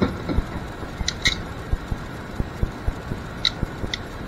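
Handling noise of wire and small metal crimp terminals being worked by hand on a tabletop: a scatter of soft taps and knocks, with a few sharp little clicks, the last ones as a hand crimping tool is brought to the terminal.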